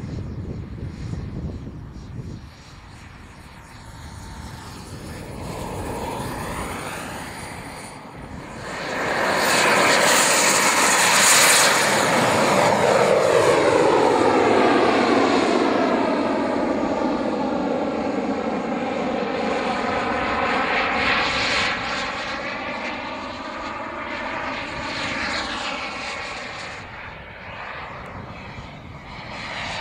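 A radio-controlled model jet flying past with its engine whining. The sound grows loud about eight seconds in and drops in pitch as the jet passes. It then fades and builds again near the end.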